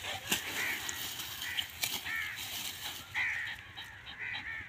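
Dog barking in short, high-pitched barks, about one a second, with sharp snaps and rustles from the dry palm fronds it is jumping at and pulling.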